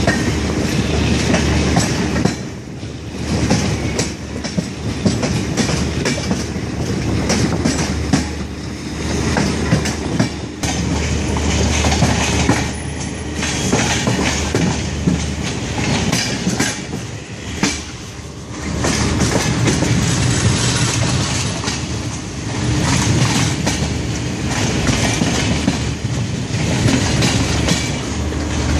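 Wheels of a moving Rajdhani Express passenger coach running over rail joints and points, with an irregular clickety-clack over a steady rumble, heard from an open coach door. The loudness dips briefly a few times.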